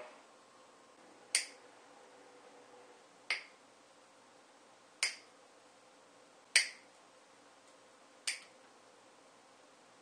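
Side cutters snipping the tails off plastic zip ties: five sharp snaps, one every couple of seconds.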